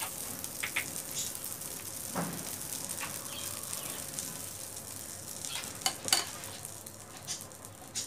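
Butter melting and sizzling in a hot pan: a steady hiss with scattered crackles and pops, growing a little quieter toward the end.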